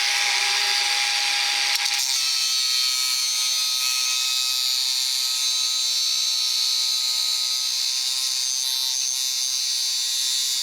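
Battery-powered angle grinder cutting through a metal bar: a steady, loud, high-pitched grinding hiss over a motor whine. The pitch of the whine shifts about two seconds in.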